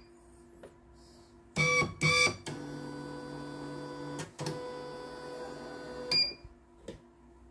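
CNY portable computerized embroidery machine: two short beeps about a second and a half in, then its motors drive the embroidery arm with a steady whine for about three and a half seconds, in two stretches. A short control-panel beep comes near the end.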